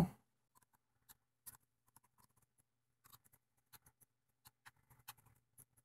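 Faint, scattered small clicks and ticks of a fine-point Phillips screwdriver working tiny fine-thread screws out of a digital camera's metal base.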